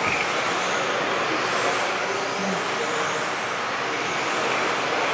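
Several electric 1/10-scale RC touring cars racing on a carpet track: a steady high motor whine, with faint pitches rising and falling as the cars speed up and slow for corners.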